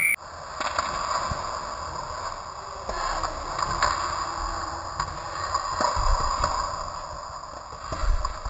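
Ice hockey play heard from a goal camera inside the net: skate blades scraping the ice under a steady dull rink noise, with a few sharp clacks of sticks or puck scattered through.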